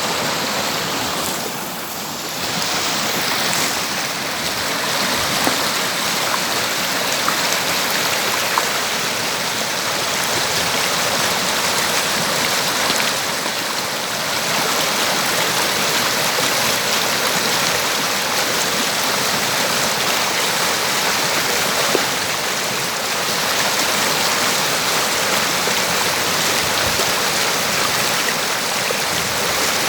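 River water rushing and splashing over rocks, a steady dense flow with only small rises and falls in level.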